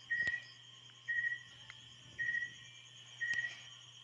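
A cricket chirping, one short chirp about once a second in a steady rhythm, over a faint low hum.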